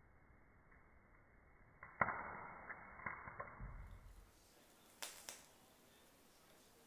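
Clicks and light knocks from handling a box mod and its rebuildable dripping atomizer: one sharp click about two seconds in, a scatter of smaller knocks after it, then two quick clicks a third of a second apart just past halfway.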